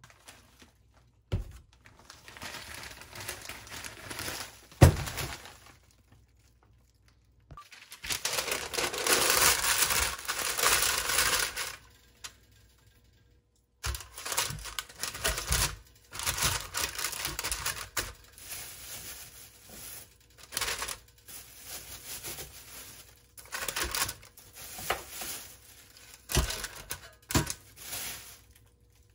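Parchment paper crinkling and tearing as it is fitted into an air fryer basket, with sharp knocks and the clatter of tongs placing food on it. The longest, loudest stretch of crinkling comes about a third of the way in.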